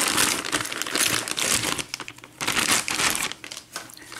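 Packing material crinkling and rustling as it is handled and pushed aside while unpacking a box, in irregular bouts with short lulls about two seconds in and near the end.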